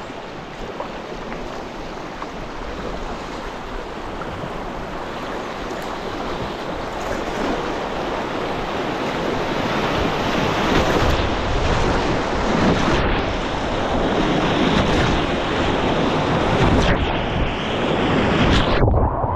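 River whitewater rushing around a kayak as it runs a class 2/3 rapid, a steady rush of water that grows steadily louder as the boat moves into the foaming white water.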